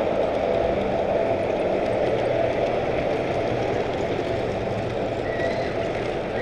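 Large-scale model train wheels rolling along the track, a steady rumble with a low hum, heard from a camera car riding on the train, while a second model train runs past on the neighbouring track.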